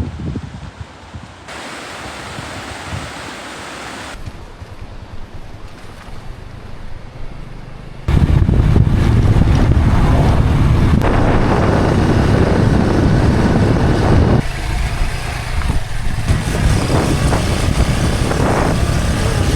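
Wind buffeting the microphone on a moving road vehicle, a steady rushing noise with a low rumble. It comes in a few short cut segments and gets much louder about eight seconds in.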